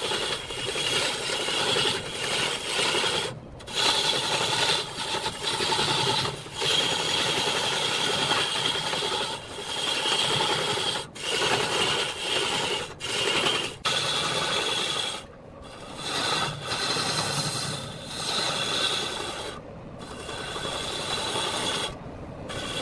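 A cloth-held sanding pad pressed against a large wooden cylinder spinning on a lathe, giving a steady rough rubbing hiss that breaks off briefly several times.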